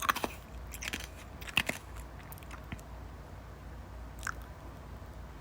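Ice being crunched between the teeth: a few crisp crunches in the first two seconds, then only faint small crunches.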